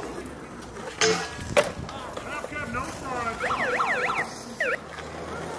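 Skateboard wheels rolling on concrete, with two sharp board clacks about a second in. Through the middle comes a rapid warbling whistle-like sound that swoops up and down in pitch several times a second.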